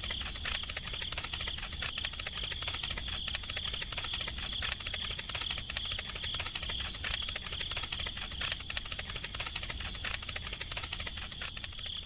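Steady insect trilling, a high, dense, rapid pulsing that keeps on without a break, over a faint low hum.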